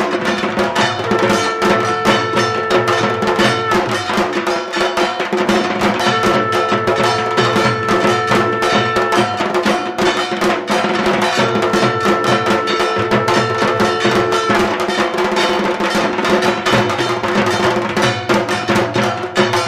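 Music led by drums, with a dense, steady percussion rhythm and clacking, bell-like strokes. A long held note sounds three times over it, each lasting about three seconds.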